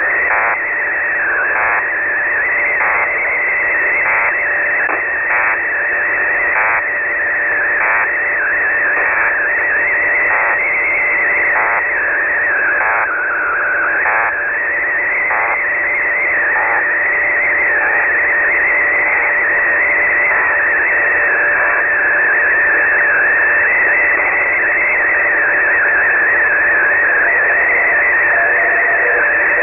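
Shortwave receiver output on 3591.40 kHz carrying an unidentified sweep-and-data signal. Steady hiss with a high warbling tone that wanders slowly up and down in pitch, a faint steady lower tone, and short blips about once a second through the first half, fading out past the middle.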